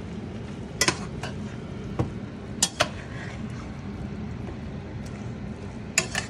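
A metal spoon stirs saucy chicken and broccoli in a stainless steel pan. It clinks and scrapes against the pan's side about seven times, several in quick pairs, over a steady low sizzle of the pan cooking.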